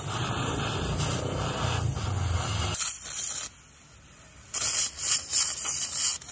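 Gas welding torch flame hissing steadily as it welds a steel plate onto a motorcycle frame. It drops away about three seconds in, then comes back in several short rough surges near the end.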